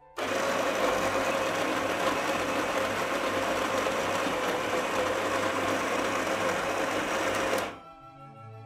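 Electric burr coffee grinder grinding espresso-fine coffee straight into a portafilter: a steady motor-and-grinding noise with a held hum that starts at once, runs about seven and a half seconds, and stops suddenly near the end.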